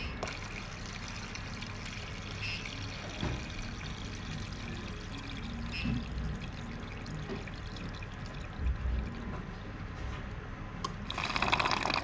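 Water pouring and trickling from plastic tubing, steady for most of the time and louder about eleven seconds in.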